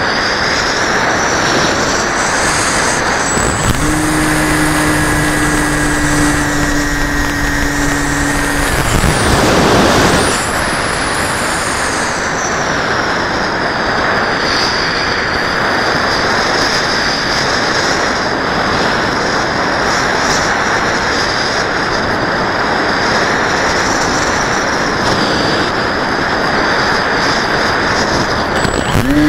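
Onboard sound of a model airplane in flight: wind rushing past the camera under a high motor-and-propeller whine that rises and falls with the throttle. A steady low hum joins for about five seconds a few seconds in, and the rush swells briefly about ten seconds in.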